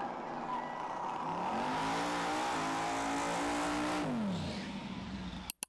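Car engine under hard acceleration: its pitch climbs, holds steady at full throttle, then falls away about four seconds in. The sound cuts off abruptly near the end.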